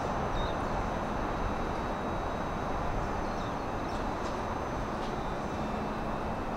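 Steady rush and hum of a JR West 323 series electric train at a station platform, with faint steady high-pitched tones and a few light ticks.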